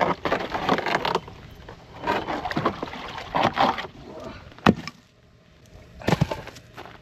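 Ice being broken up in a frozen livestock water tank: several bursts of cracking and splashing, with one sharp knock about two-thirds of the way through.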